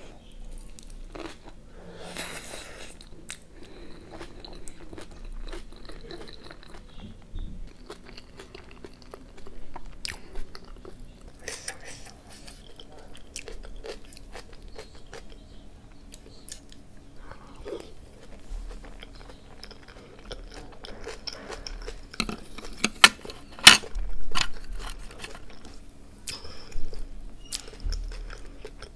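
A person chewing and biting into sweet potato with kimchi, with repeated crunchy bites. The loudest crunches come about 23 to 24 seconds in.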